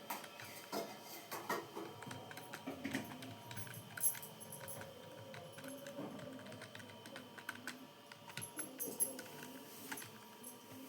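Computer keyboard being typed on: a steady stream of irregular key clicks, with a couple of louder keystrokes about four seconds in and again near nine seconds.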